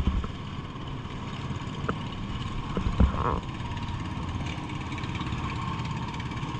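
Steady running of a boat's engine, a low rumble, with a single sharp knock about three seconds in.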